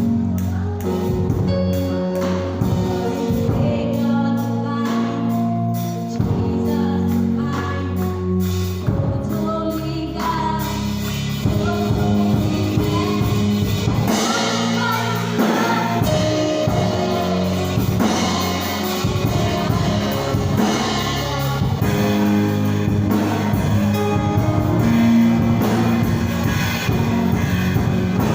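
Gospel music at a church service: voices singing over long held chords, with the music filling out and drums striking from about ten seconds in.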